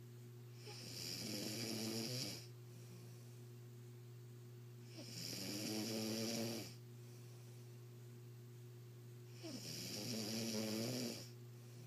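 A man snoring in his sleep: three long snores about four and a half seconds apart, each lasting about a second and a half, over a steady low hum.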